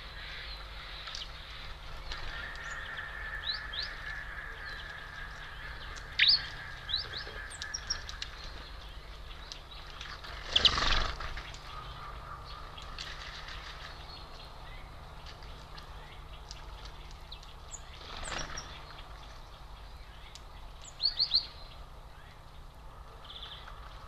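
Small songbirds chirping at a feeder: scattered short, high calls, with a louder, rougher burst about eleven seconds in and smaller ones later.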